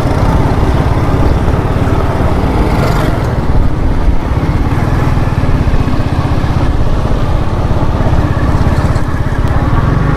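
Wind buffeting the phone's microphone: a loud, steady, fluttering low rumble.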